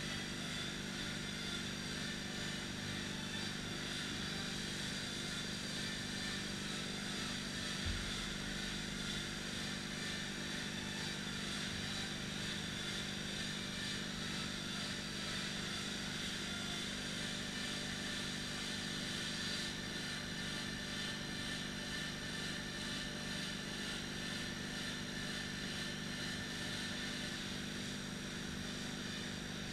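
Steady mechanical drone, with a single dull thud about eight seconds in.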